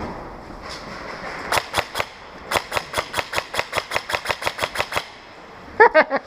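Airsoft gun firing a quick string of shots, about six a second for roughly three seconds, then stopping; a short pitched call follows near the end.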